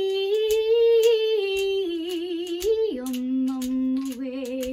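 A woman sings a wordless tune in long held notes, dropping to a lower, wavering note about three seconds in. A hand-held egg shaker is shaken in rhythm behind the voice.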